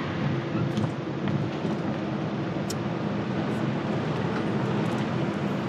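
Nissan Xterra driving on a dirt trail: steady engine hum under tyre and road noise, with a few faint light clicks.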